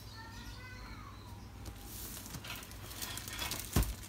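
A taped cardboard parcel being handled on a tiled floor: rubbing and scraping of the box and its plastic packing tape, with one heavy thump near the end as the box is knocked or set down. Faint high-pitched calls sound in the first second or so.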